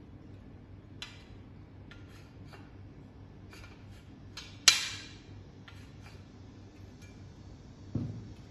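Folding metal air-conditioner wall bracket being unfolded by hand: light metal clicks and rattles, then one sharp metallic clank with a short ring about halfway through as the arm swings round. Near the end a dull knock as the bracket is set down on a wooden table.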